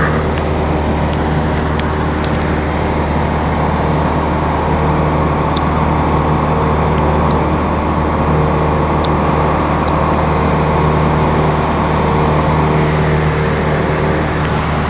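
Propeller aircraft's engine droning steadily, heard from inside the passenger cabin, with a constant hum and a hiss of rushing air.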